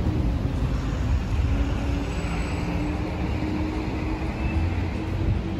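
Road traffic on a city street: a motor vehicle's engine running with a steady hum over a low rumble.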